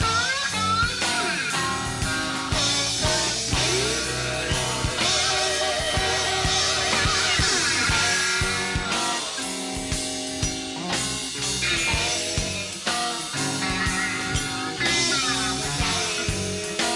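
Live rock band playing an instrumental break: a lead line with sliding bends and wavering vibrato over electric guitar, bass, keyboards and a steady drum kit.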